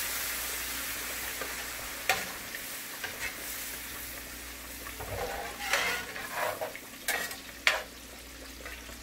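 Coconut cream and water sizzling in a hot cast iron skillet, the hiss fading over the first few seconds. A metal spatula scrapes and taps against the pan several times from about two seconds in as the sauce is stirred.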